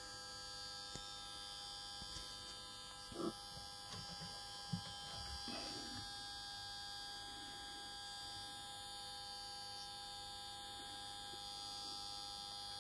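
Faint steady electrical hum and whine made of several fixed tones, with a few soft handling knocks about three to five seconds in.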